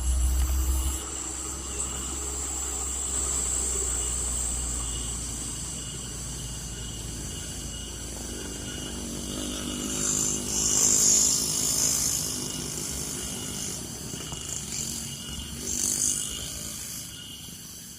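Loaded heavy truck's diesel engine labouring on a climb. A deep rumble is strongest at first and fades over the first few seconds. Hissing bursts come about ten seconds in and again near the end.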